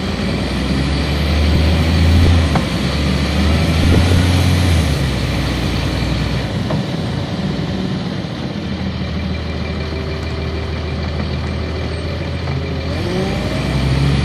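A 1999 Nova Bus RTS transit bus's Cummins ISC diesel engine running, heard from the rear of the passenger cabin. The engine note grows louder and falls back a few times, loudest a couple of seconds in and again near the end.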